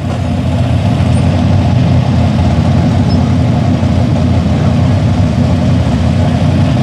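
A big engine idling steadily with a low, even rumble.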